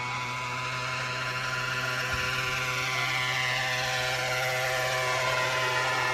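Gasoline engine of a large radio-controlled model airplane running in flight, its note falling gradually in pitch over the latter half.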